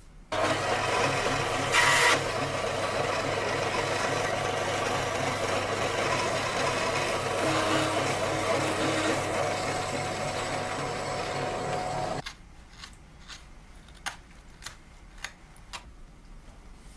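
Small electric scroll saw running steadily as it cuts a white template board to the profile of a plaster model. It starts just after the beginning, runs for about twelve seconds with a brief harsher moment near the start, and stops suddenly; a few light clicks follow.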